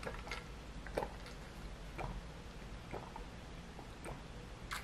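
A person drinking water through a water bottle's spout: faint sips and swallows, soft clicks about once a second.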